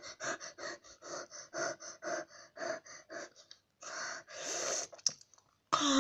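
A boy panting fast through an open mouth, about four short breaths a second, then two longer, noisier breaths and a sharper breath near the end. He is breathing through a mouth stung by sour candy.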